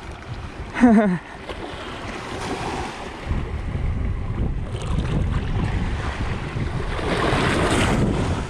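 Wind buffeting the microphone over sea waves washing against shore rocks, a steady rumbling rush that grows heavier partway through. About a second in, a short falling-pitched vocal exclamation.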